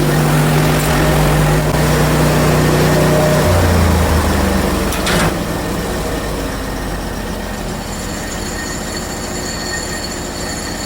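Portable bandsaw mill running with its engine under steady load; the engine's pitch drops about three and a half seconds in and the sound eases soon after. A high steady whine comes in near the end.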